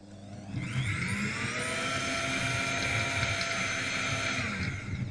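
Xiaomi high-speed blender's motor spinning up with a rising whine, running steadily at high speed as it blends liquid soup, then winding down near the end.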